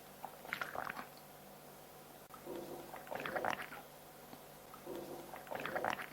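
A girl's quiet throat and mouth sounds between coughs: three short, crackly bouts about two seconds apart, some starting with a low hum.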